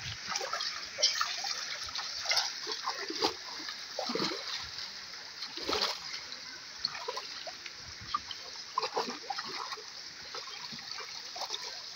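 Hands and a small cup splashing and scooping water in a shallow, running river: irregular splashes and trickles over the steady rush of the stream.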